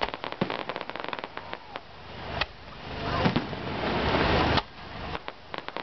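Aerial fireworks bursting overhead: a rapid crackle of many small pops, a sharp bang about two and a half seconds in, then a swelling rush of noise that cuts off suddenly, followed by more crackling pops.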